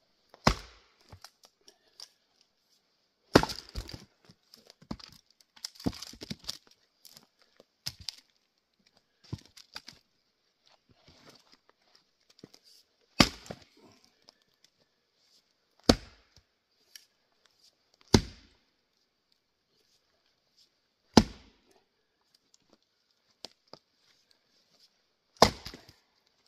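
Axe strikes splitting tamarack firewood: about eight sharp chops and cracks a few seconds apart, with smaller knocks and wood tearing between them.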